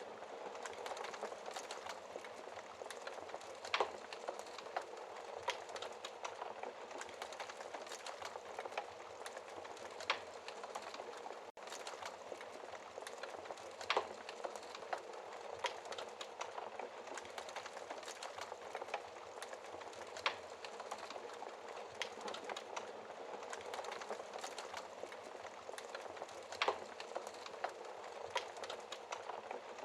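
Wood fire crackling in a fireplace: a steady hiss of burning with frequent small crackles and a few louder, sharp pops at irregular intervals.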